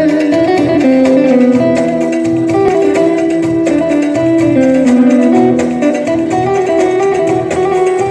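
Instrumental music: a Korg keyboard plays a stepping melody in a plucked, guitar-like voice over a regular low accompaniment.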